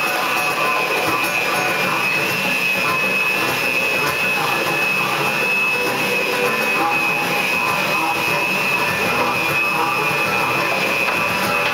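Harmonica and acoustic guitar jamming a train boogie. The harmonica keeps up a steady, breathy, train-like chug over the guitar without a break.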